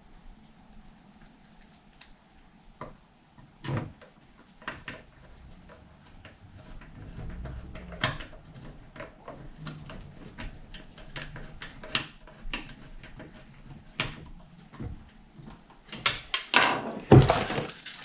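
Small Phillips screwdriver driving screws into a metal hard-drive enclosure: scattered light clicks and ticks of metal parts and the driver, with a few louder knocks and clatter near the end.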